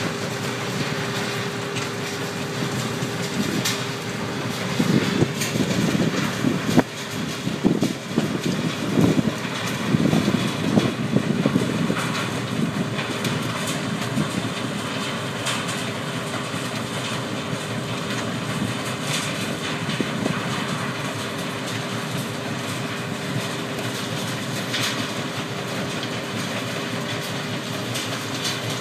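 Komptech Cribus trommel screen and Hurrifex separator running together, a steady machine hum under the rattle of material passing through, with heavier, irregular clattering between about five and twelve seconds in.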